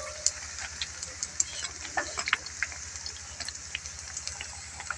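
A ladle stirring fried pakoras into yogurt kadhi in a steel pot, with scattered light clicks of the ladle against the pot, over a steady hiss of pakoras frying in hot oil.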